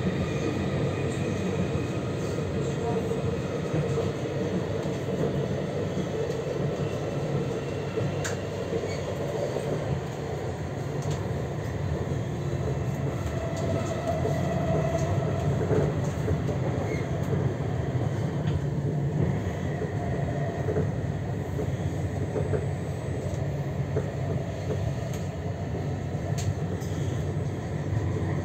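Tram in motion, heard from inside the passenger car: a steady rumble of wheels on the rails and running gear, with a brief higher hum around the middle and a few light clicks.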